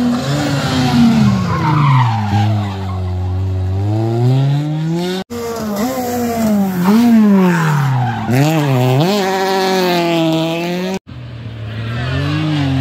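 Rally cars' engines heard one after another in three clips cut abruptly together: a Ford Fiesta, then a Peugeot 208, then a Renault Twingo. Each engine note falls and rises as the car brakes and changes gear on the approach to a hairpin, with quick dips and rises in pitch in the middle clip.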